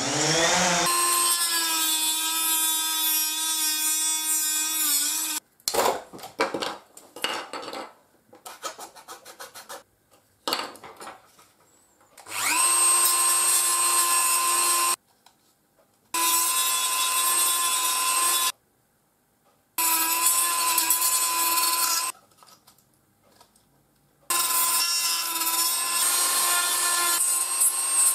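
Handheld rotary tool with a small cutting disc, grinding a white plastic plate. It runs in about five bursts of two to four seconds, each a steady whine, with clicks and scraping of the part being handled between bursts.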